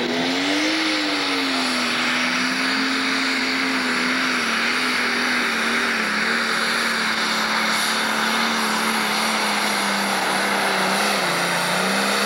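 Turbocharged diesel engine of a Pro Stock pulling tractor at full throttle, hauling a weight-transfer sled. The engine note climbs on launch, holds steady under heavy load over a loud hiss, and sags briefly near the end.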